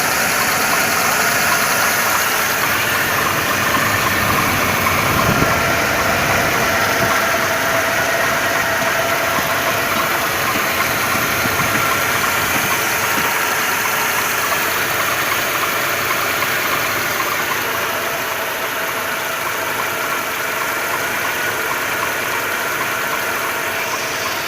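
Mercedes-Benz M111 2.2-litre four-cylinder petrol engine running at a steady idle with the knock that the owner is asking others to diagnose.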